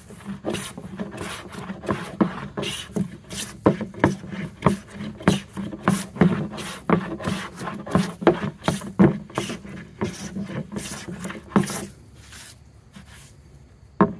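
No. 5 jack bench plane taking light shavings off a board in a run of quick, regular strokes, about two a second, each a short swish. The iron is very sharp and set for a very light cut. The strokes stop about twelve seconds in.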